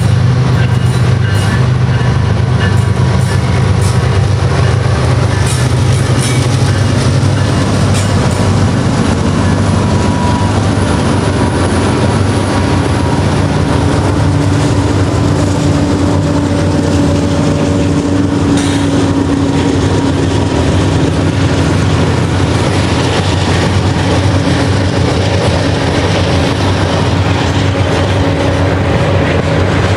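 A mixed freight train passes close by. Its lead diesel-electric locomotives (a GE ES44AH, an EMD SD40-3 and two GE CW44ACs) rumble loudly through the first several seconds, with wheels clacking over the rail joints. The freight cars then roll by with a steady, even noise and a thin wheel squeal in the second half.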